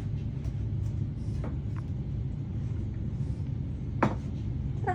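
Steady low rumble with a few light clicks and one sharper knock about four seconds in.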